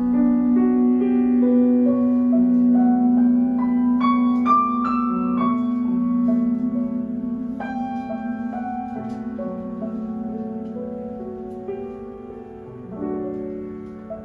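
Piano accompaniment playing flowing chords under a male singer's long held final note. The note is steady at first, wavers with vibrato from about halfway and fades out near the end, where a last piano chord sounds.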